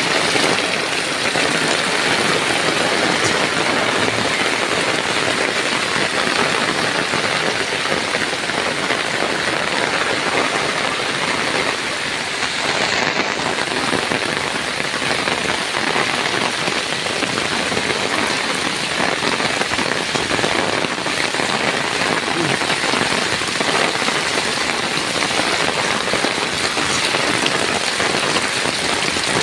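Heavy downpour: a steady hiss of rain pouring onto roofs, foliage and standing water on the ground.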